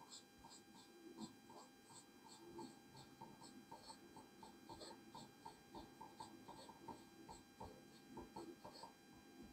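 Faint, irregular short squeaks and taps of a marker pen writing on a whiteboard, a few strokes a second, over a steady electrical hum.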